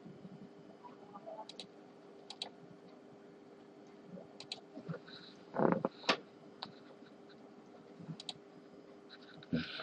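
Scattered light clicks, several coming in quick pairs, with a louder short clatter about six seconds in, over a steady low hum.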